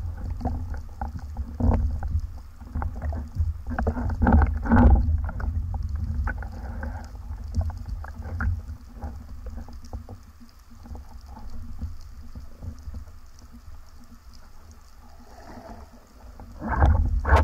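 Muffled underwater sound heard through a gun-mounted waterproof camera housing: a low rumble of moving water with scattered knocks and clicks as the speargun, line and fish are handled. The knocks are busiest in the first five seconds, die down, and pick up again near the end.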